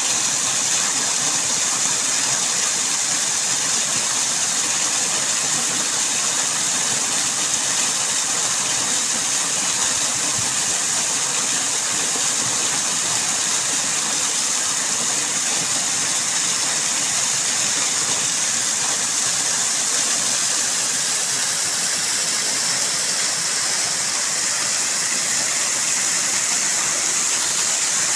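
Waterfall: falling water rushing in a steady, even hiss that does not change.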